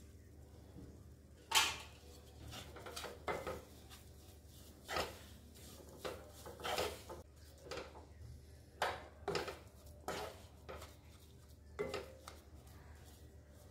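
Wooden spatula scraping and knocking against a non-stick pan while stirring a thick besan and ghee mixture, in irregular strokes about once or twice a second. The loudest is a sharp knock about a second and a half in.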